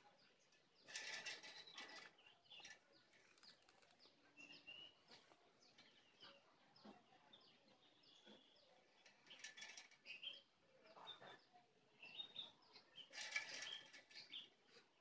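Near silence with faint scattered bird chirps and three brief rustling noises, about a second in, around ten seconds in, and near the end.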